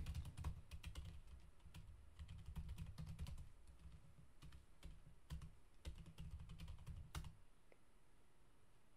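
Faint typing on a computer keyboard: a run of quick key clicks that stops about seven seconds in.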